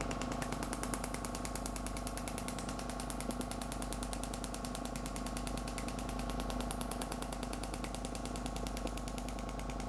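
Shockwave therapy handpiece pulsing against the patient's hip: a rapid, even tapping that keeps up without a break, over a steady hum from the unit.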